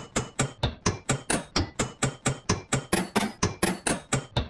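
Rapid, evenly paced hammer blows on steel, about six a second, each with a short metallic ring.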